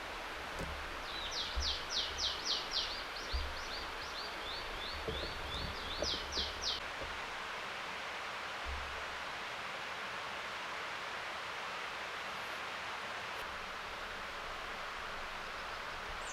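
A small songbird sings a fast run of repeated high notes for the first seven seconds or so. A steady rushing hiss of forest ambience continues underneath throughout.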